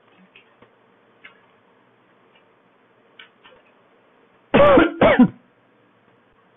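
A man clears his throat with two loud coughs, about four and a half seconds in, after a few faint clicks.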